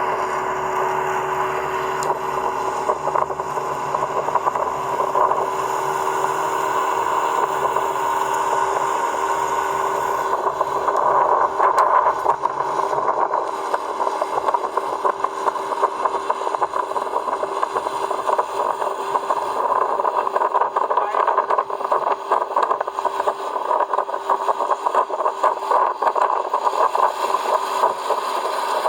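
Jon boat's outboard motor running steadily under way, with rough crackling noise over it from about ten seconds in.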